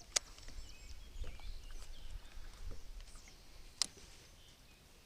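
Quiet outdoor ambience on the river. A low rumble runs through the first few seconds, with faint bird chirps, and two sharp clicks come a few seconds apart.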